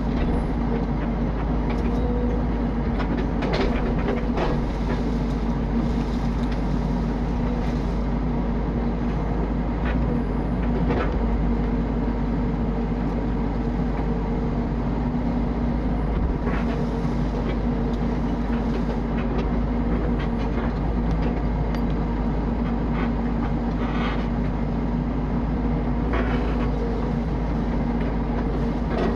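Mini excavator's engine running steadily with a constant hum, with scattered knocks and clanks as it works the ground and wood.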